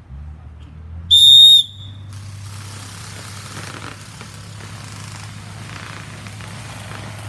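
Referee's whistle blown once, a loud steady blast of about half a second about a second in, signalling the start of a speedball round; afterwards only a steady low hum and background noise.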